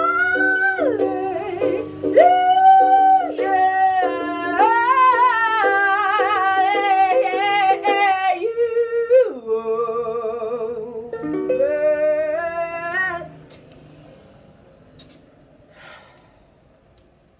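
A solo singer holding long, wavering notes over strummed ukulele chords. The song ends about thirteen seconds in, leaving only faint room sound.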